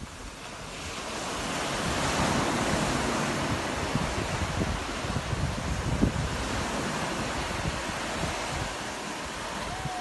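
Sea surf breaking and washing up a sandy beach, swelling over the first couple of seconds and then holding steady, with wind buffeting the microphone.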